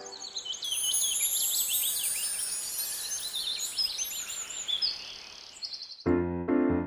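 Birds chirping and twittering, many quick high calls overlapping, some sliding up or down. About six seconds in, piano music cuts in and takes over.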